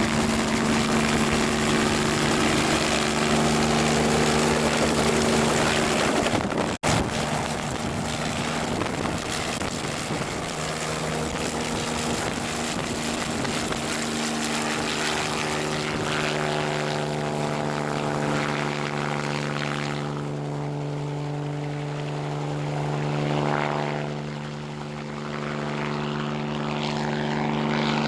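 Crop-spraying helicopter's engine and rotor running steadily, with a short break in the sound a little under seven seconds in. Later the sound thins and becomes less bright, as the aircraft moves off.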